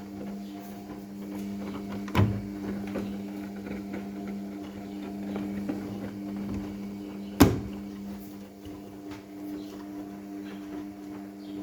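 New washing machine running with a steady hum, broken by two sharp knocks, the second louder, about five seconds apart.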